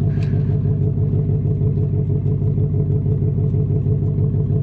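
2024 Mustang GT's 5.0-litre V8 idling steadily through a Steeda H-pipe and active-valve exhaust, an even low exhaust note.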